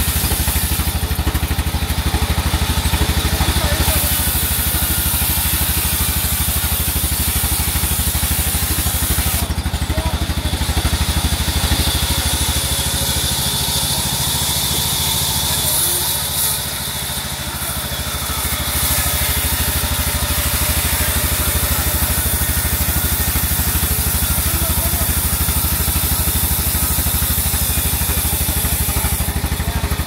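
Sawmill band saw machinery running steadily: a constant low hum under a hiss, dipping slightly for a couple of seconds just past the middle.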